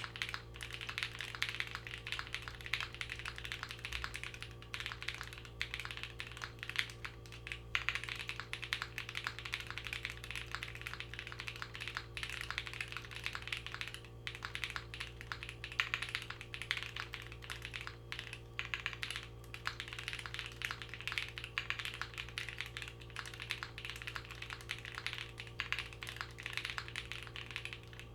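Continuous typing on a Vertex Angle custom mechanical keyboard with lubed JWK Bluey switches, a polycarbonate plate and GMK keycaps: a fast, uneven stream of keystroke clacks, really quiet because of the flexy PC plate. A dorm fridge hums steadily underneath.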